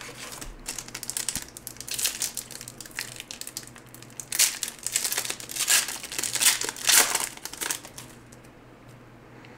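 Foil trading-card pack wrapper being crinkled and torn open: irregular crackling that grows louder in the second half and stops about eight seconds in.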